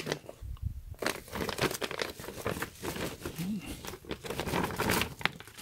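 Glossy plastic shopping bag crinkling and rustling as it is tipped and shaken to empty it, with a run of irregular crackles.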